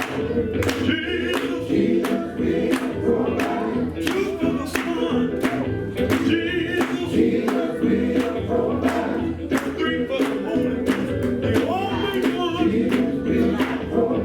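Live gospel music: a vocal group singing in harmony over a band with a steady beat.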